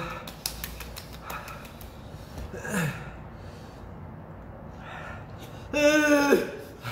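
A man's short, loud, high-pitched startled cry near the end, held for about half a second. A few faint clicks come before it.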